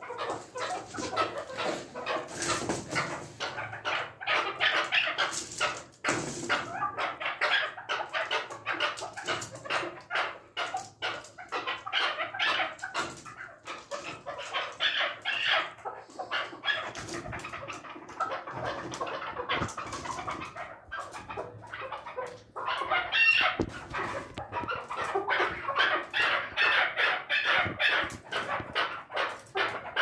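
Caged chukar partridges calling: a fast, rapid string of repeated notes that keeps going, with short breaks about six and twenty-two seconds in.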